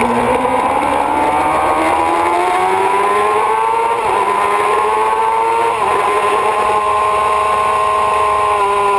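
Kawasaki ZX-6RR's inline-four engine at full throttle, heard on board. It winds up out of a corner, its pitch rising, with two quick dips as it shifts up, then holds at high revs down the straight.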